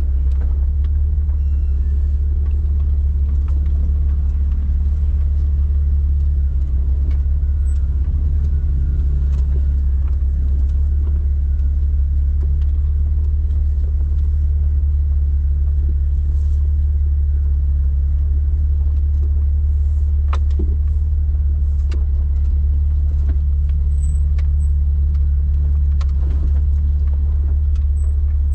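Jeep Wrangler engine running at low revs with a deep, steady rumble and slight changes in pitch. A few sharp clicks and knocks are scattered through it, the clearest about twenty seconds in.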